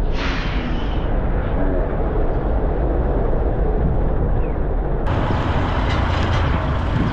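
Steady low rumble of a moving van's engine and road noise, heard from inside the van. A brief rush starts things off, and a brighter hiss joins suddenly about five seconds in.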